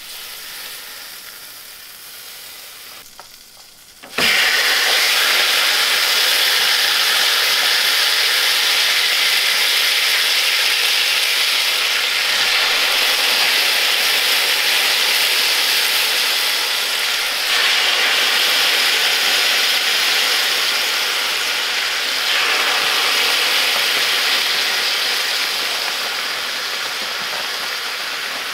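Marinated snowshoe hare pieces searing in a hot cast iron frying pan: a loud sizzle that starts suddenly about four seconds in as the first meat goes in. It swells again twice as more pieces are laid in.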